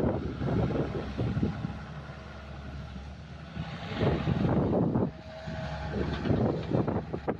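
An engine running steadily, with gusts of wind buffeting the microphone.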